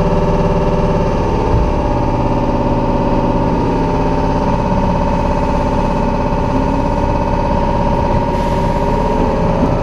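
Electric commuter train pulling away from a station, heard from the front cab. Its motors give a whine that rises in pitch as it picks up speed.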